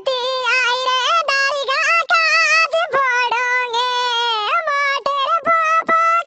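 One voice, pitched up into a squeaky cartoon voice, sings an uchhata folk song, holding long notes with a wavering pitch.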